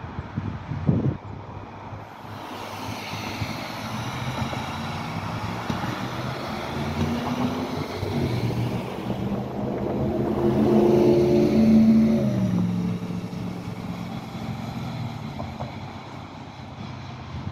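Road traffic passing on a wet road: tyre hiss, then a vehicle's engine drone that swells and drops in pitch as it goes by, loudest about eleven to twelve seconds in.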